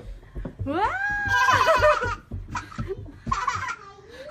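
A small child's high-pitched squealing laugh, rising in pitch and held for about a second and a half, then a shorter squeal of laughter about three seconds in.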